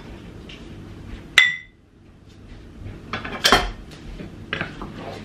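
Kitchen utensils clinking against cookware while cooking. One sharp metallic clink about a second and a half in rings briefly, then a few more knocks and clatters follow past the middle.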